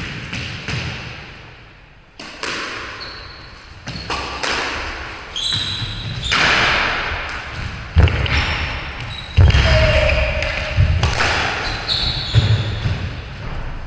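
Squash rally: the ball smacking off rackets and the court walls again and again, with short high squeaks from shoes on the wooden floor. Each hit echoes in the enclosed court.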